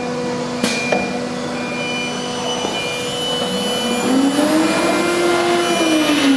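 CNC router running: a steady machine hum with a few fixed whines. Two sharp clicks come a little under a second in. About four seconds in, a motor tone rises in pitch and falls back again, as a drive speeds up and slows down.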